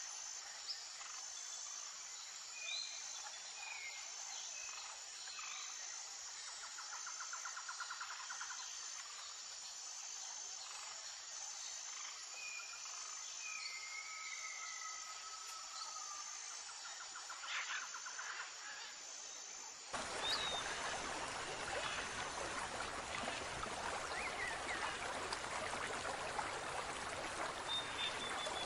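Natural outdoor ambience: insects chirping in an even rhythm about once a second, with scattered short bird chirps and a brief buzzing trill. About twenty seconds in it cuts abruptly to a louder sound of running, trickling water.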